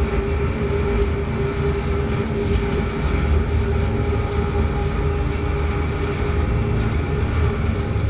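Soundtrack of a projected video-art installation: a steady, dense low rumble with a held mid-pitched hum over it.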